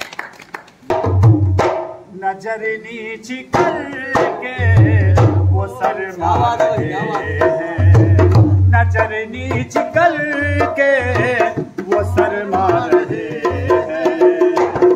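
Qawwali music: a drum pattern with deep bass strokes, in the manner of tabla, under a wavering melody line.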